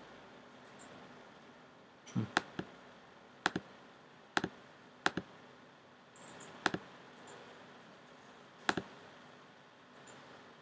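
Computer mouse clicking, about seven short clicks, most of them a quick press-and-release pair, spaced unevenly a second or two apart, over faint room tone.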